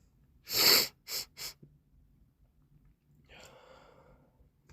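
A person with a runny, snotty nose: a loud, sharp burst of air about half a second in, then two quick sniffs, and from about three seconds in a longer, quieter breath.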